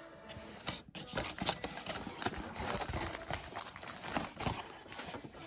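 Paperboard cake box being handled and its kraft-paper flaps folded shut: crinkling, scraping and light knocks of cardboard in a quick irregular run.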